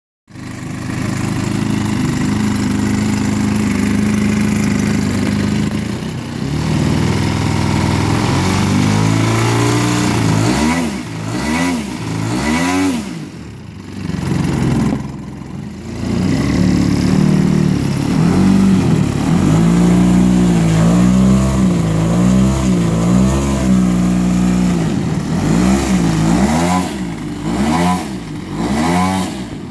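3W 110CS twin-cylinder two-stroke petrol engine of a large RC aerobatic plane running on the ground, turning a 26x10 three-blade propeller. It holds a steady speed for the first few seconds, then is revved up and down over and over, with a couple of brief throttle-backs midway.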